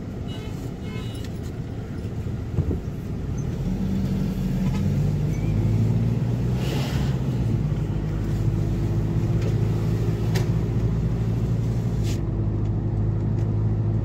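Car engine and road noise heard from inside the cabin while driving; the engine hum grows louder about four seconds in and then holds steady.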